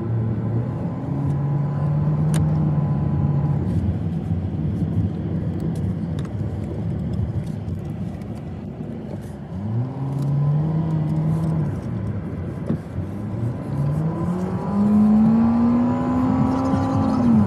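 Car engine running over road noise as the car drives. Its pitch rises twice as it accelerates: once about ten seconds in, and again more strongly near the end.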